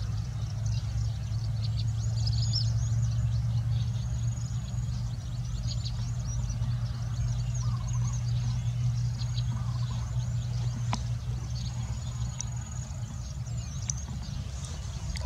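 A steady low motor hum with small birds chirping and twittering high above it.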